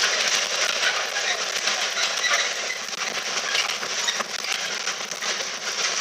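Container freight train passing, its wagon wheels clattering over the rails in a steady, dense rattle of small metallic clicks.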